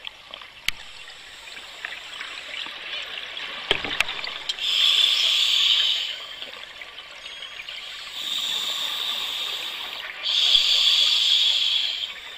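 A scuba diver breathing through a regulator underwater: three long hissing, bubbling breaths in the second half, over a steady watery hiss, with a few sharp clicks in the first four seconds.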